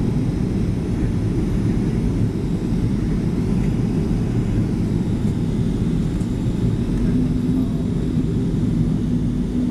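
Steady cabin noise inside a Boeing 737 on approach: a constant low rumble of the engines and the airflow past the fuselage. A steady hum joins in about seven seconds in.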